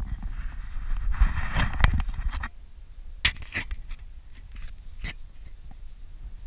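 Wind buffeting a small action camera's microphone, with rubbing and scraping as the camera is handled and turned, strongest for the first couple of seconds. A few sharp knocks follow, about three, from handling.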